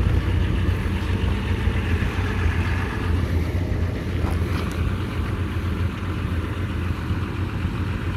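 A vehicle engine idling, a steady low rumble.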